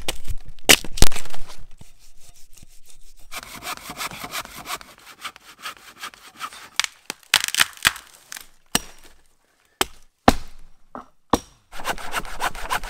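Hand saw cutting through dead wood in fast, even back-and-forth strokes, in two spells. Sharp knocks of wood come in the first second or so, the loudest about a second in, and again between the spells of sawing.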